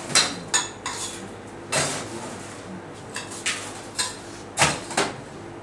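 Ice being scooped and dropped into a tumbler glass to chill it: about ten separate sharp clinks and rattles of ice against glass and metal, spread unevenly.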